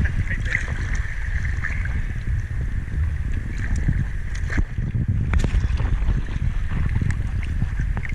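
Steady low rumble of water moving around a camera in a waterproof housing, with a faint steady higher hum and scattered small clicks.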